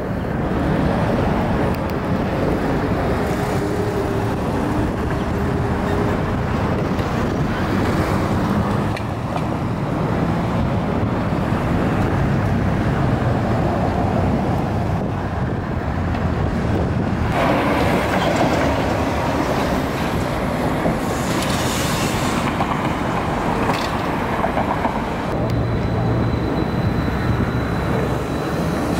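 Steady city street traffic: electric trolleybuses, cars and a streetcar moving past, with a louder passing rush about seventeen seconds in and a faint high steady whine in the last few seconds.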